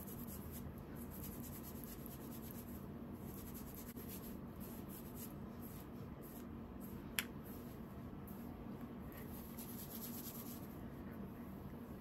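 Fingers rubbing dry shampoo into hair and tousling it: a faint, scratchy rustle, with one sharp click about seven seconds in.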